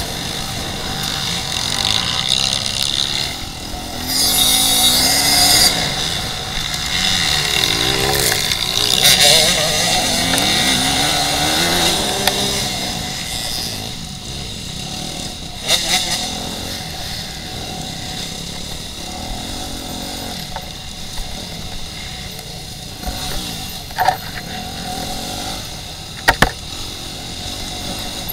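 Dirt bike engine revving up and down as the rider accelerates over rough ground, with bursts of rushing noise a few seconds in and again at about nine seconds. Several sharp knocks come in the second half.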